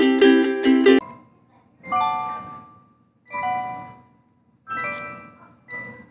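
Background music: a bright plucked ukulele tune with quick, even strums stops abruptly about a second in. Slow, bell-like chime chords follow, about one every second and a half, each ringing out and fading.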